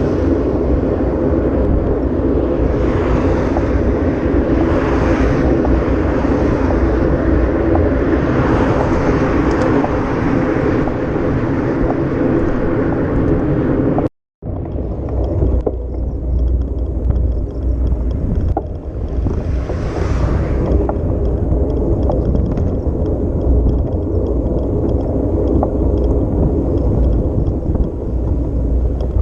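Off-road vehicle engine running steadily under way, with wind buffeting the microphone. The sound drops out completely for about half a second, halfway through.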